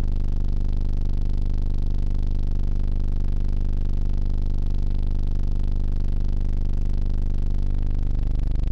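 Analog synthesizer drone from a Moog Subharmonicon and modular system controlled by Lux light-sensor modules: a steady, buzzy tone rich in overtones, its pitch sliding about a second before the end.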